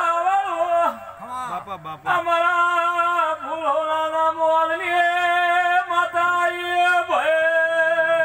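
A man singing a devotional chant in long held notes, with a short break of shorter, speech-like sounds about a second in and a fresh note taken up near the end.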